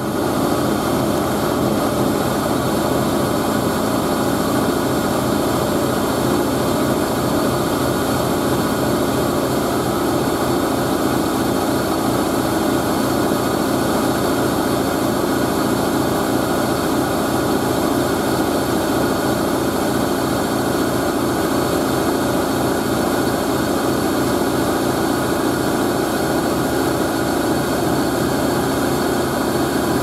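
Hoover A3060 Electronic 1100 front-loading washing machine spinning, its motor and drum running steadily and loudly while the machine shakes and vibrates badly from an unbalanced load. It has not yet reached its 1100 rpm top spin speed.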